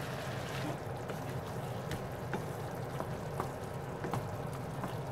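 Ground beef and vegetables simmering in a frying pan in their own juices: a steady bubbling hiss with scattered small pops.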